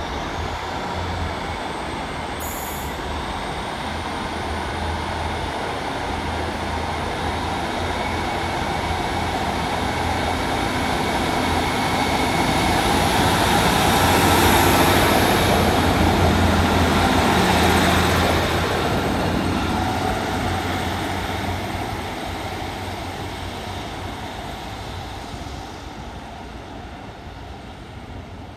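A train running through the station: the rumble grows louder to a peak about halfway through, then fades away as it moves off. A thin, high wheel squeal rides over it.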